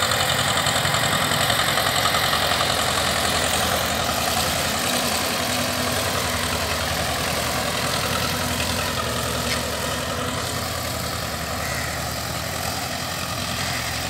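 1991 Escort 335 tractor's diesel engine running steadily at a slow, even pace while pulling a disc harrow through the soil, growing a little fainter as the tractor moves away.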